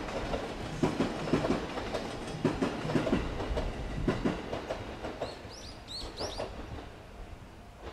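Ome Line electric train running past, its wheels clicking over the rail joints in a steady rhythm that fades away as it leaves. A bird chirps several times in the second half.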